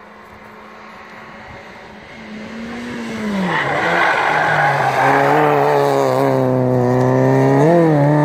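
A hillclimb race car's engine comes closer, its note dropping as it slows for a hairpin bend. It then accelerates hard out of the bend with a loud, steadily rising engine note and a brief jump in pitch near the end.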